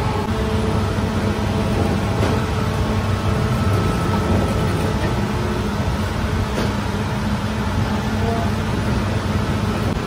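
Bakery dough-dividing machine running with a steady low mechanical hum as it portions dough into balls.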